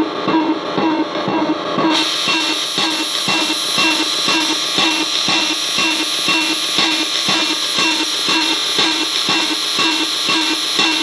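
Glitchy electronic drum loop from a circuit-bent Korg DDD-1 drum machine run through a digital effect, pulsing fast and evenly at about four to five hits a second. About two seconds in, the sound suddenly turns much brighter and hissier as the patching changes.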